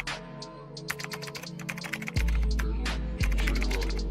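Rapid, irregular typing on a computer keyboard, over music with a deep bass line.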